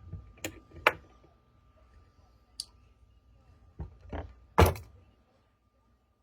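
A few sharp clicks and knocks, then a heavier thunk about four and a half seconds in, from handling the opened combination padlock.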